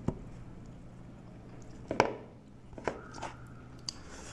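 Close-up eating sounds of two people eating rice and curry with their hands: soft squishing and chewing with a few sharp clicks and smacks, the loudest about two seconds in. A low steady hum runs underneath and drops away about three seconds in.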